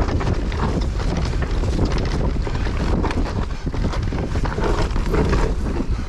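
Wind buffeting the microphone over the rumble of a mountain bike's tyres on a dirt singletrack descent, with frequent small knocks and rattles from the bike over roots and bumps.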